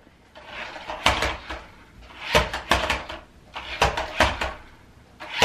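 Small remote-control stunt car clattering and whirring in three short bursts as it is driven and spun over a rug.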